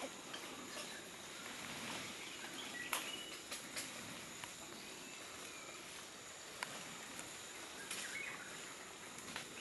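Tropical rainforest ambience: a steady high insect drone, with a few sharp clicks and rustles in dry leaf litter and brief faint bird chirps.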